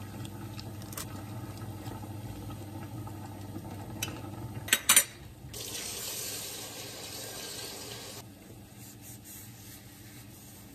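Two sharp clacks of a pot being handled, then tap water running into the rice cooker's inner pot for about two and a half seconds to rinse the rice.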